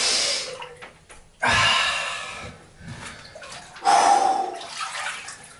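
Water sloshing and splashing in a bathtub full of ice water as a person lowers himself in, in three surges that each fade away.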